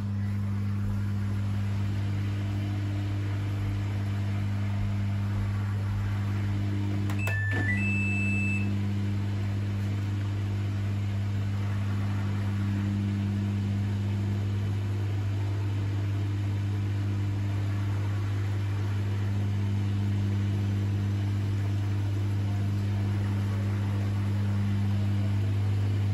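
Samsung WF80F5E2W4W front-loading washing machine humming steadily with its drum at rest. About seven seconds in, a click is followed by a short beep and then a higher, longer beep from its control panel.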